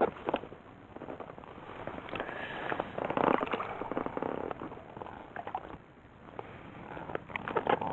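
Water splashing and lapping close to an inflatable float boat, in uneven swells, with scattered small clicks and rustles of handling.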